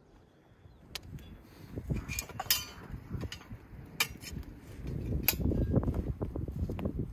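Metal cooking gear being handled: a fire poker and the wire bail handle of a cast-iron kazan give a few sharp clinks, one ringing briefly about two and a half seconds in. In the last two seconds a denser run of small knocks sounds over a low rumble.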